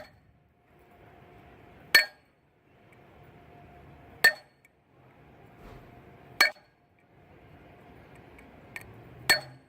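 Hammer blows on metal, one sharp ringing clink about every two seconds, with one lighter tap near the end: a hammer driving a socket against the Jeep JK's AC compressor pulley bearing to press it out or in.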